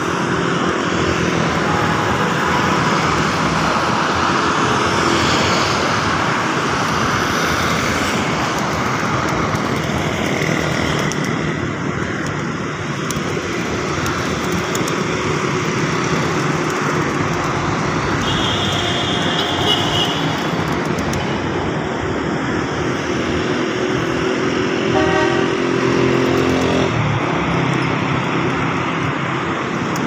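Steady road traffic noise from passing cars and motorcycles, with a couple of short vehicle horn toots about two-thirds of the way through.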